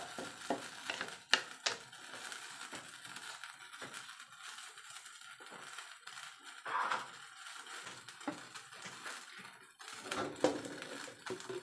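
Irregular soft crackles and pops from chayote and ground-meat broth heating in an aluminium wok over a gas burner, with a few sharper clicks among them.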